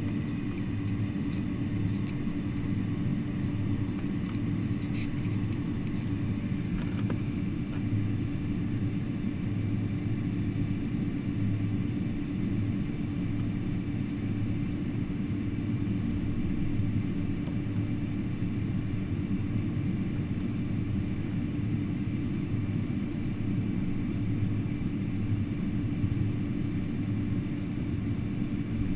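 Cabin noise inside a Boeing 747-400 on the ground after landing: a steady low rumble with a constant hum, and a few faint ticks in the first seven seconds or so.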